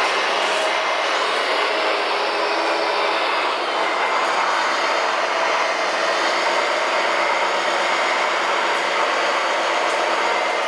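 Radio-controlled scale construction machines running: a steady mechanical whine and gear noise from their electric drive motors and gearboxes.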